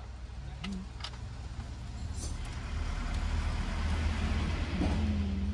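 A van driving past, its engine and tyre noise swelling to a peak about four to five seconds in. Two light clicks in the first second.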